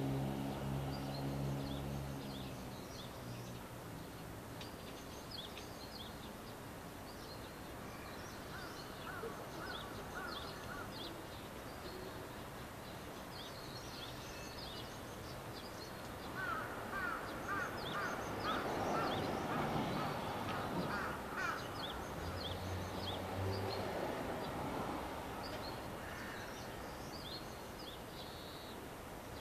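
Birds calling: small birds chirping throughout and a crow cawing in a run of calls past the middle. At the start, the low hum of a diesel railcar's engine fades out over the first few seconds.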